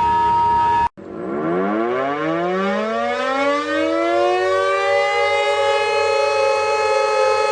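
A steady electronic alert tone cuts off abruptly about a second in. A civil-defence-style emergency siren then winds up, its several tones rising in pitch for about three seconds before settling into a loud, steady chord.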